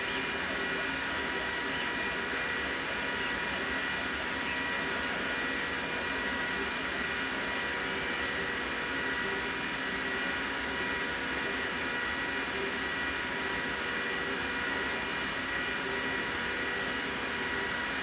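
Glowforge Plus laser cutter running a job: the steady rush of its cooling fans and an external exhaust fan, with several steady whining tones over it.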